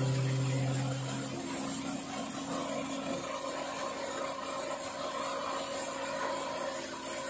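A guitar chord rings out and fades in the first second and a half, leaving a steady, faint machine-like hum.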